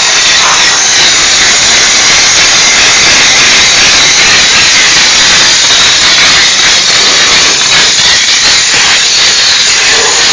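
Diesel steam cleaner's jet hissing loudly and steadily as it sprays steam.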